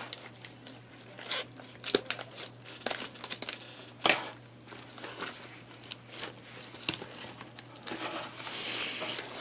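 Plastic packaging crinkling and tearing as a parcel is cut open with scissors, with a few sharp clicks; the crinkling grows louder near the end.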